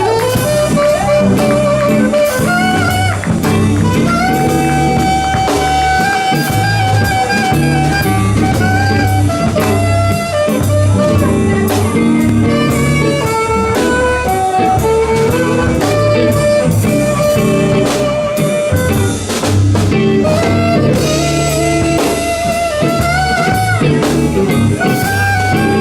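Blues band playing an instrumental break: a lead melody line with held, bending notes over drum kit and a steady low bass.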